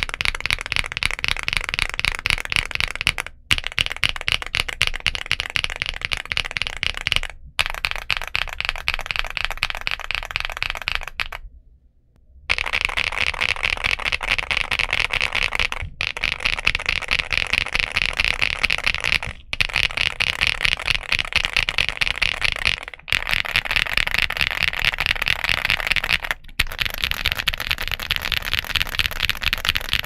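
Fast typing on a Feker Galaxy80 mechanical keyboard with Feker Marble White linear switches and PBT MDA-profile keycaps: a dense stream of keystrokes, broken by brief pauses every few seconds, the longest about twelve seconds in.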